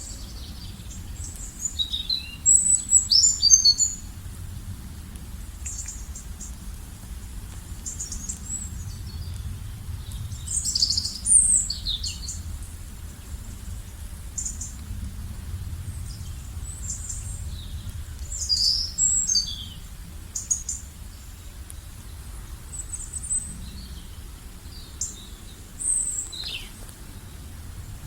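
Several songbirds chirping and trilling in short high bursts, in clusters every few seconds, over a steady low rumble.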